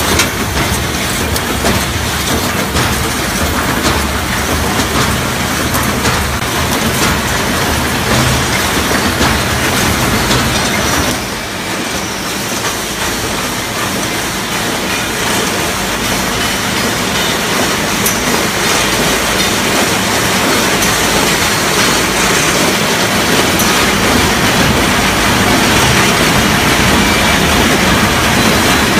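Wire mesh welding machine running in production: a loud, continuous mechanical clatter with many sharp clicks. The low rumble under it drops away about eleven seconds in.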